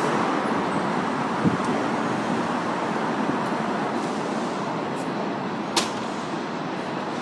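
Steady rumble of an R62A subway train on the elevated IRT line running away down the track, slowly fading. There is a single sharp click about six seconds in.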